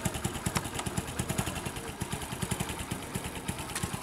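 Hero Honda motorcycle's single-cylinder four-stroke engine idling with a steady, rapid, even beat.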